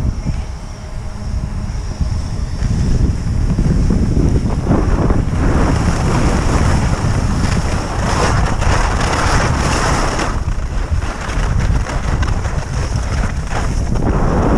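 Wind buffeting the microphone of a camera carried downhill on skis, with the hiss of skis sliding over snow, loudest in the middle.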